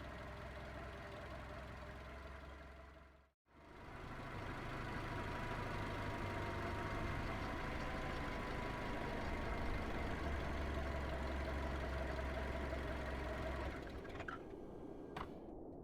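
Car interior ambience: a car engine running steadily fades out about three seconds in. After a moment of silence it fades back in with a steady rushing noise of a snowstorm outside the car.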